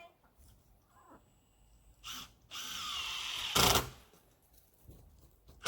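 Power drill driving a screw: a short spin about two seconds in, then a steady run of about a second that ends in a loud brief burst.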